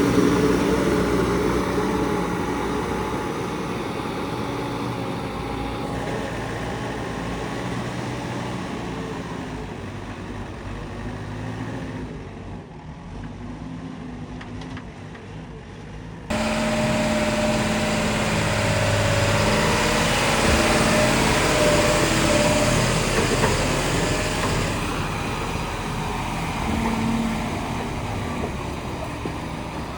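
Heavy diesel machinery engines running under load, their pitch shifting. The sound changes abruptly about six seconds in and again about sixteen seconds in.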